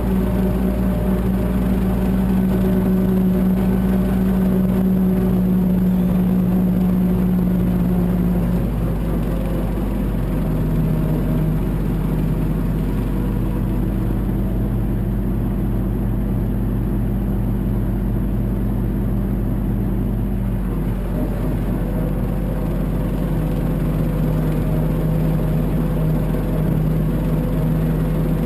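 Mahindra 1526 compact tractor's diesel engine running steadily; its note drops slightly about a third of the way in and picks up again about three-quarters through.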